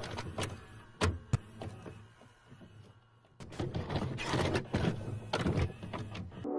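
Toy RC rock crawler driving over dirt and loose stones: its small electric motor runs in spurts while the wheels and chassis knock and clatter. The knocks are scattered and sharp, with a lull a little before halfway and a denser run of clatter after it.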